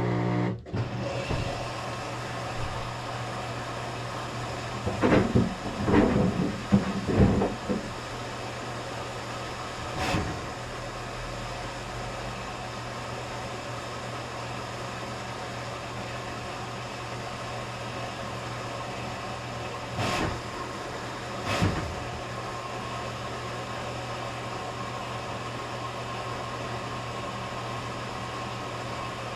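Maytag washing machine running with a steady hum, and sandals knocking against the drum: a quick run of knocks about five to seven seconds in, then single knocks about ten seconds in and twice near twenty seconds.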